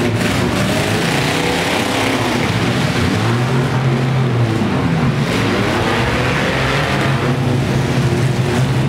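Engines of several demolition-derby mini trucks and vans running and revving, a loud, steady mechanical din.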